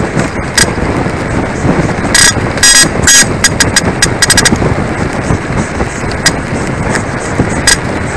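Electronic bicycle horn beeping: three short beeps about two to three seconds in, then a rapid run of very short beeps, warning a car following close behind. Under it is steady wind and road noise from riding.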